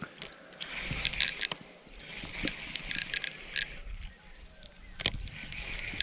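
Spinning reel and fishing tackle being handled: light clicks and metallic rattles in small clusters, over a low wind rumble on the microphone.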